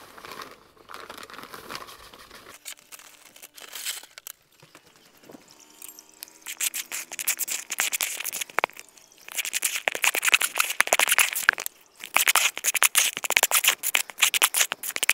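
A plastic bag of masonry filler powder rustles as it is emptied into a plastic bucket. From about six seconds in comes a louder, dense run of rapid scraping and clicking as the filler is mixed in the bucket.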